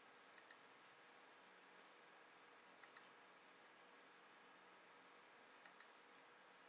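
Computer mouse button clicked three times, each click a quick pair of faint ticks, over quiet room hiss.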